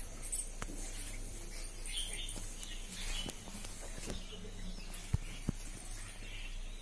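Faint scattered bird chirps in the background, with a few light clicks.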